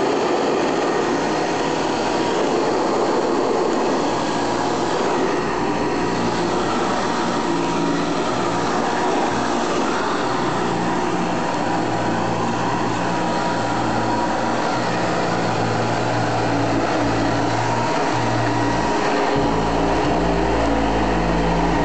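Late-1950s Hoover Model 63 upright vacuum cleaner running steadily, its motor freshly fitted with new bearings. The low hum underneath shifts in pitch now and then.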